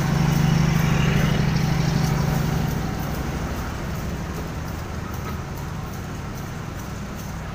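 A passenger train's generator car rolls past, its diesel generator set humming loudly and fading after about three seconds. Then passenger coaches roll by with a regular clicking of wheels on the rails.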